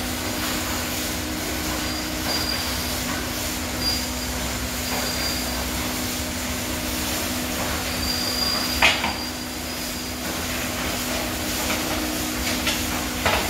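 A 1993 HANNA tunnel car wash running: water sprays hissing over a steady motor hum while the floor conveyor pulls the car along. A few brief high squeaks sound, and there are sharp metallic clanks, the loudest about nine seconds in and again near the end.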